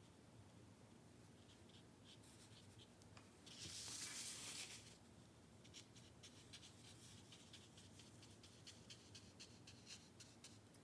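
Faint sound of a watercolour brush on paper: a longer brushing swish about four seconds in, then a run of short, quick scratchy dabs as jagged fur strokes are laid down.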